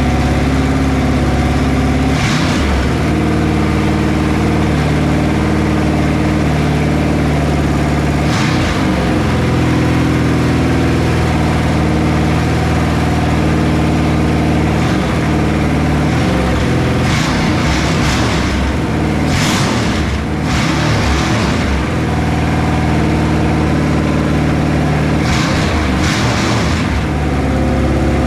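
Freshly rebuilt Ford 302 Windsor small-block V8 with a Holley Demon four-barrel carburettor, running loud through open headers with no mufflers on its first start. It runs at a steady idle, with several short throttle blips that raise and drop its pitch.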